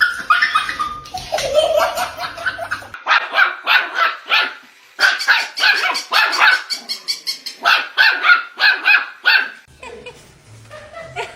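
Dog barking over and over in quick, sharp barks, several a second, with a brief pause about four and a half seconds in.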